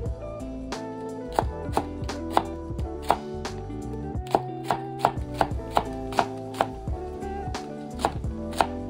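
Kitchen knife chopping vegetables on a cutting board in steady strokes, about two to three a second, over background music.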